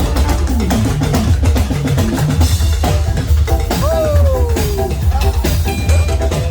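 Loud band music driven by a drum kit with bass drum and snare. About four seconds in, one pitched note slides downward for about a second.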